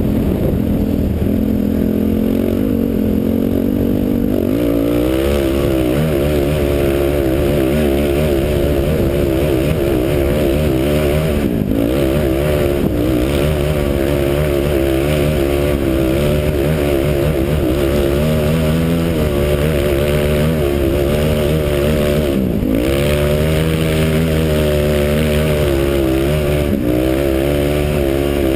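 Honda TRX450R sport quad's single-cylinder four-stroke engine running under throttle, its pitch rising and falling as the rider speeds up and eases off. Twice, at about 11 and 22 seconds in, the engine note drops sharply and climbs straight back.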